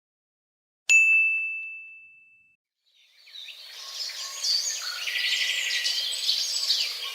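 A single bright bell ding about a second in, ringing out and fading over about a second and a half. After a short silence, birds chirping and twittering fade in and fill the last four seconds, as in a stock birdsong sound effect.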